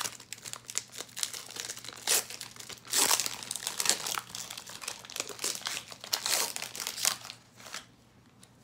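Foil wrapper of a Pokémon TCG Unbroken Bonds booster pack crinkling and tearing as it is opened, in irregular rustling bursts that die down near the end.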